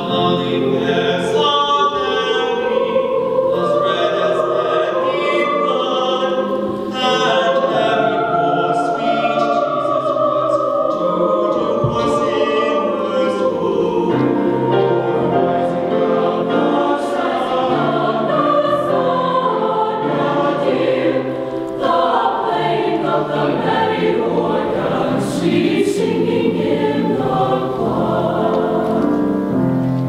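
Mixed-voice high school choir singing in parts: sustained chords whose lines move up and down, with brief breaks between phrases.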